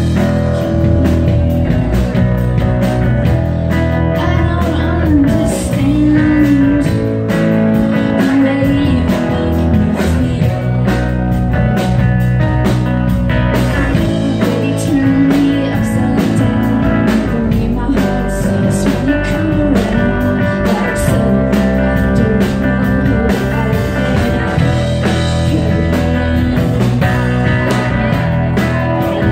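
Live rock band playing a song: a woman singing lead over electric guitar, bass and drums, heard from within the audience.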